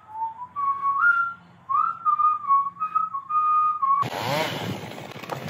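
A tune whistled as one clear melodic line, stepping up and down between a few notes. About four seconds in it gives way to a louder rushing noise.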